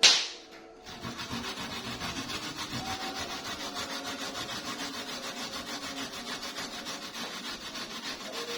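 Kencur (aromatic ginger) rhizome being grated by hand: quick, even scraping strokes back and forth over a grater. A sharp knock at the very start is the loudest sound, followed by a short pause before the scraping settles into its rhythm.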